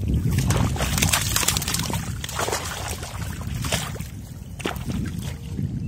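Irregular splashing and sloshing in shallow water, with many short splashes close together.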